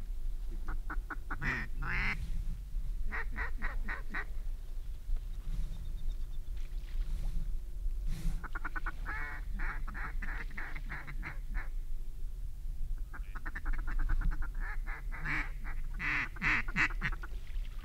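Duck calling: several bouts of rapid, chattering strings of quacks.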